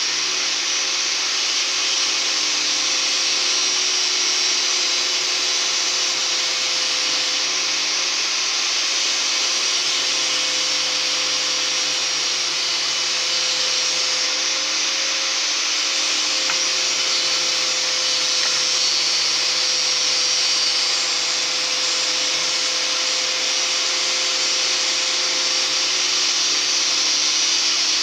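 A small electric motor spins up and then runs steadily with a loud rushing hiss and an even hum, like a shop blower or power tool left running.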